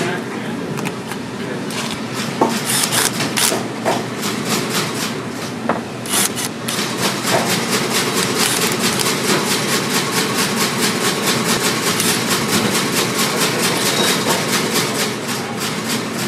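Cordless drill running as a thin bit drills into a rubber lug sole and heel. A rapid, even clicking runs through the second half.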